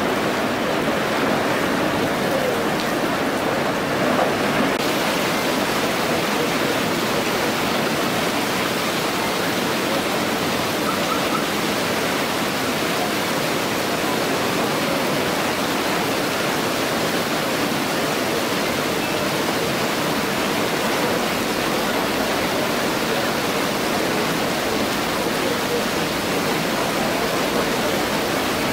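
Heavy rain falling on a flooded pavement while overloaded storm drains gush water up in foaming fountains, a steady rushing hiss that grows brighter about five seconds in. The storm sewer cannot cope with the downpour and is backing up.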